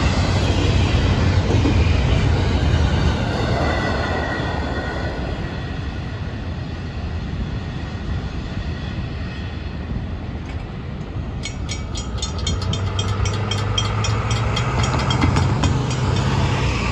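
Double-stack intermodal freight train rolling past, its wheels rumbling and clacking over the rails, fading over the first several seconds. About eleven seconds in, a railroad crossing bell begins ringing rapidly, over the low hum of waiting cars' engines.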